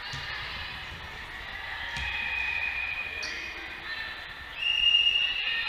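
Volleyball thudding on a hardwood gym floor, then a referee's whistle sounding twice as a steady high tone: softer about two seconds in, then louder for about a second near the end, the usual signal for the server to serve.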